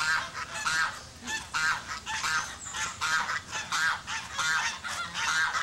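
A flock of domestic geese honking over and over, short nasal calls coming two or three a second as they walk toward the camera.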